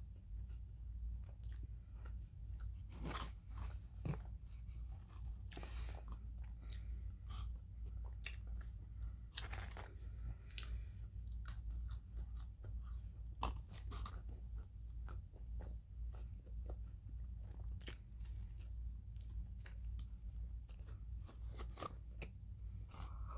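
Close-up eating sounds of a McDonald's Quarter Pounder and fries being bitten and chewed: irregular smacks and crunches from the mouth, over a steady low hum.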